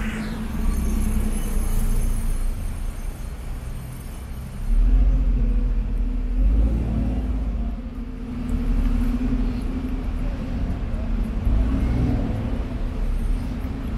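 Road traffic: a steady low engine hum with vehicles rumbling past, and a heavier rumble swelling about five seconds in.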